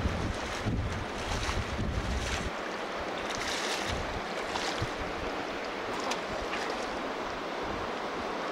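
Rushing river water, with wind rumbling on the microphone that cuts off about two and a half seconds in. Splashes of a hooked lenok thrashing at the surface during the first couple of seconds.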